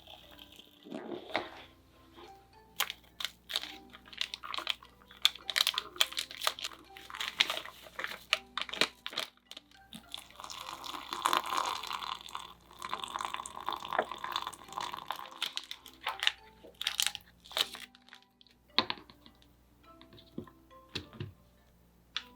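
Sharp clicks, crackles and crinkling from plastic convenience-store food containers and packaging being handled, densest in the middle, over soft background music.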